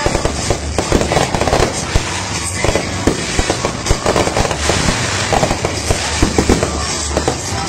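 Ground-fired consumer fireworks going off: a dense, unbroken run of pops, bangs and crackle, several reports a second.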